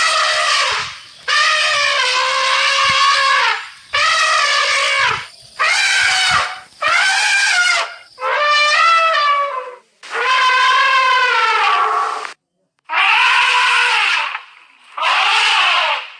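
Wild elephant trumpeting over and over: about nine loud calls of one to two seconds each, with short gaps between them.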